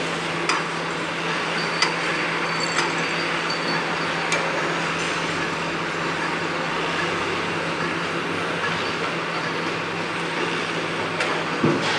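Construction-site din: a steady background of machinery and traffic noise with a constant low hum, broken by sharp hammer knocks, four in the first few seconds and two more near the end. A brief high-pitched squeal sounds about two to four seconds in.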